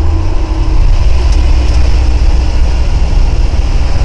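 1979 Ford F-150 pickup's engine running steadily with a loud, low rumble.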